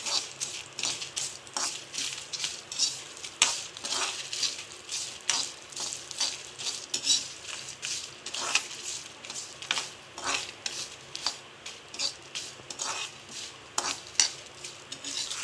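Whole spices sizzling as they fry in a little oil in a kadai. A metal spoon stirs them, scraping and knocking against the pan at uneven intervals, about once or twice a second.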